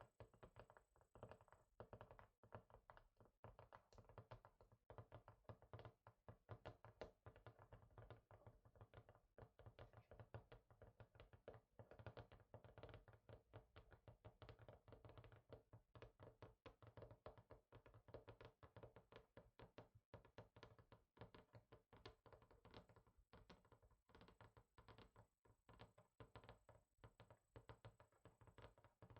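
Fingers tapping rapidly and unevenly on a hard surface, many faint taps a second without a break.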